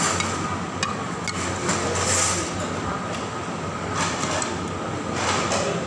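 Busy restaurant background noise: a steady din with a low hum underneath and a few sharp clicks and clatters.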